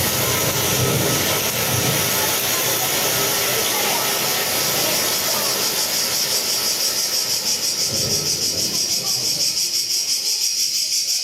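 Electroacoustic playback of field recordings: a broad hiss over a low rumble, giving way about six seconds in to a fast, even, high-pitched pulsing.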